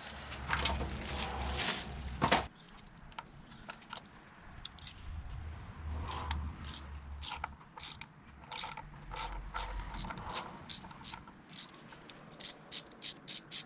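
A ratchet wrench clicking in short, irregular runs of sharp clicks, after a couple of seconds of tool handling noise.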